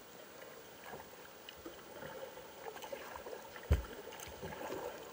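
Kayak paddle strokes in calm river water, with light splashes and drips, and one dull thump about three and a half seconds in.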